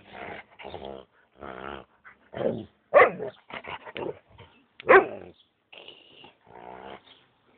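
Husky-malamute cross growling and grumbling in a string of rough vocal bursts while play-fighting with a hand, with two loud sharp barks about three and five seconds in.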